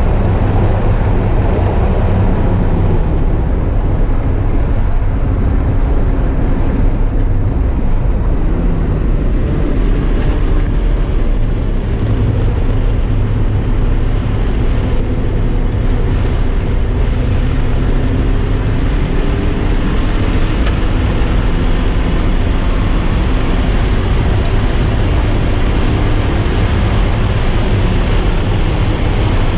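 Porsche 944's four-cylinder engine pulling hard on track, its pitch climbing through the revs and dropping back again and again at the gear changes. Heavy wind and road noise sit underneath.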